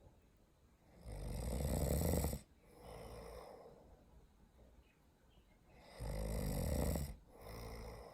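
Snoring: two long, loud snores about five seconds apart, each followed by a shorter, softer breath.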